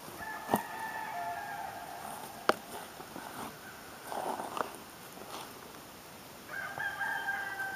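An animal calling in the background, two drawn-out steady calls, one at the start and one near the end, with a few sharp clicks between.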